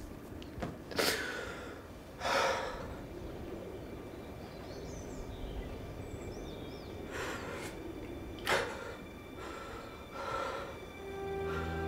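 A man breathing in ragged gasps and sighs, five sharp breaths spread over the stretch. A low, steady music drone comes in near the end.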